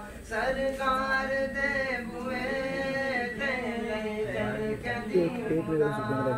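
A teenage boy's solo voice singing a naat, an Islamic devotional song, in long held notes that bend and slide between pitches.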